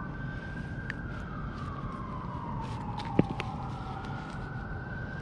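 A distant emergency-vehicle siren wailing, its pitch sliding slowly down and then back up. A single sharp click about three seconds in.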